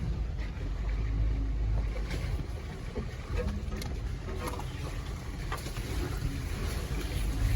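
The low rumble of a Jeep Gladiator Rubicon's 3.6 Pentastar V6 crawling a trail at low speed, heard from inside the cab, with scattered light clicks and knocks over it.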